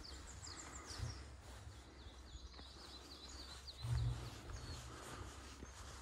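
Small birds calling in quick runs of short high notes over a steady low rumble, with a dull thump about a second in and a louder thump about four seconds in.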